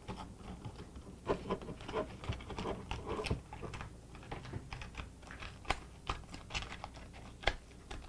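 Aluminum foil crinkling in irregular sharp crackles as hands crumple it and press it into shape.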